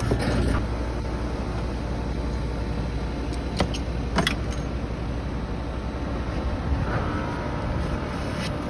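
Steady outdoor rooftop background: a continuous low hum under a rushing, wind-like noise, with two sharp clicks about three and a half and four seconds in.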